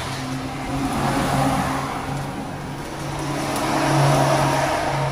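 A motor vehicle's engine running with a steady low hum, swelling louder about a second and a half in and again about four seconds in.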